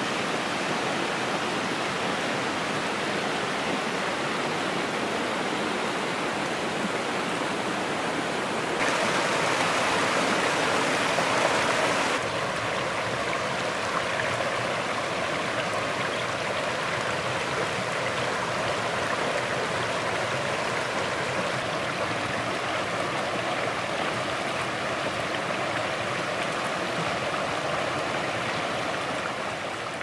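Forest creek rushing and splashing over rocks and small cascades, a steady rush of water. It turns suddenly louder for about three seconds from around nine seconds in, then settles back, and fades out near the end.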